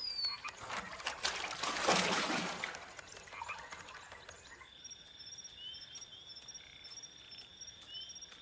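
Swamp sound effects: water splashing for the first few seconds, then a quieter night chorus of insects and frogs. The chorus is a steady high trill with about four quick chirps a second and a few short falling calls.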